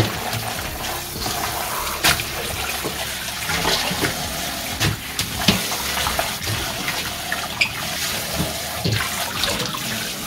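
Tap water running into a sink, with several short knocks and clatter from things handled in the basin.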